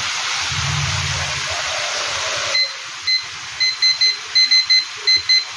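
A digital kitchen timer beeping with each button press as it is set to eleven minutes: a quick, uneven run of about a dozen short, high beeps starting about three seconds in. Before them comes the steady sizzle of chicken deep-frying in hot oil, which cuts off suddenly.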